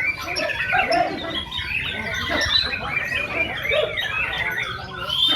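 White-rumped shamas (murai batu) singing hard together, a dense, unbroken tangle of quick whistles, chirps and trills from several birds at once.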